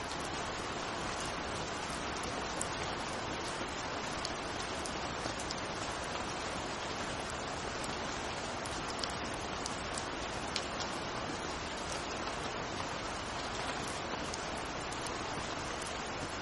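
Steady rain falling, an even wash of noise with scattered sharp ticks of individual drops.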